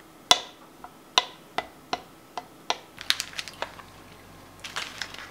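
Sharp clinks of a metal spoon against a glass measuring jug as a thick sauce is stirred, about two a second, then a quick run of clicks from metal tongs against a stainless steel tray as a slab of pork belly is moved.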